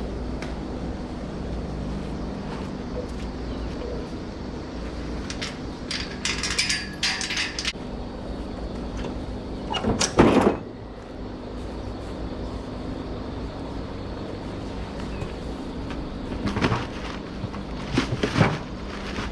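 A steady low mechanical hum with several scrapes and knocks over it, the loudest about ten seconds in and two more near the end.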